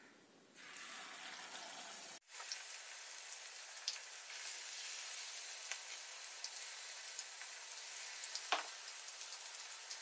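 Flour-coated chicken pieces frying in hot oil in a pan: a steady sizzle with scattered crackles and pops, starting about half a second in.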